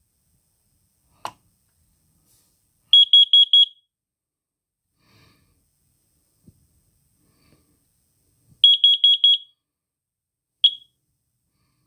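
Carbon monoxide alarm sounding during a test: a click, then a quick run of five high-pitched beeps. After a pause of about five seconds comes another quick run of beeps, then one last single beep.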